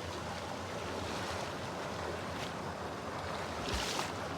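Steady rush of water from a waterfall and its fast-flowing stream, with a brief louder burst of noise near the end.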